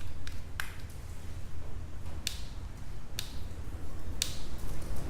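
Sharp plastic clicks, about one a second, from hands working the latch of the 4L60E transmission's wiring plug to free the connector, over a steady low hum.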